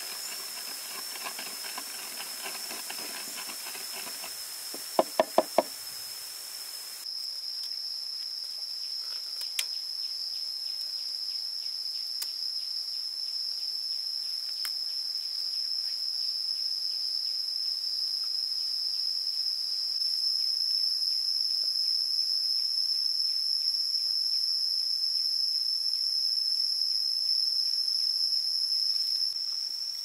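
A wooden pestle pounds chili sauce in a clay mortar, ending in four sharp knocks about five seconds in. After a sudden change, pig intestines on bamboo skewers grill over coals with faint crackling and hiss, under a steady high insect buzz.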